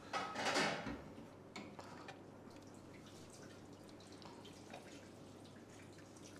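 Ladlefuls of thick, hot dal poured from a steel ladle into a terracotta bowl: a soft wet splash for most of the first second, then a few faint drips and light ladle clicks.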